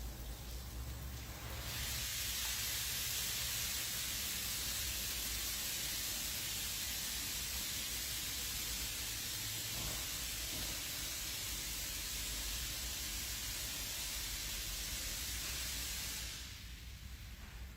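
High-pressure water jets of an automatic car wash spraying: a steady hiss that starts about a second and a half in and cuts off near the end.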